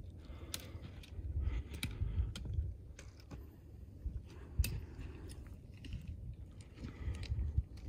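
Footsteps crunching on a rocky, gravelly trail, with irregular sharp taps of trekking poles on stone, over a low rumble.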